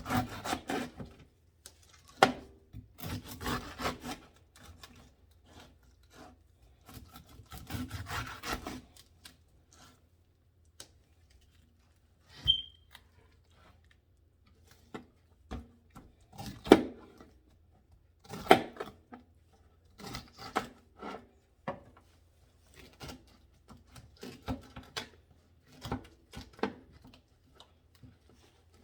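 Knife cutting away the rind of a green pineapple: bursts of rasping, scraping strokes with pauses between, and a few sharp knocks.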